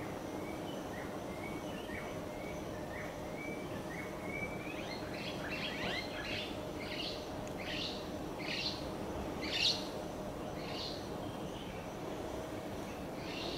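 Birds calling: short high chirps at first, then, from about five seconds in, a run of quick high notes that each fall in pitch, spacing out toward the end, over a steady outdoor background.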